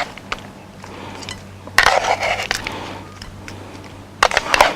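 Serving utensils clinking against dishes while food is plated: a cluster of sharp clinks about two seconds in and another near the end.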